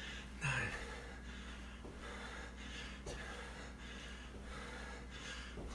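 A man breathing hard in quick, rhythmic puffs, about two a second, in time with jumping squats, with one louder voiced exhale about half a second in.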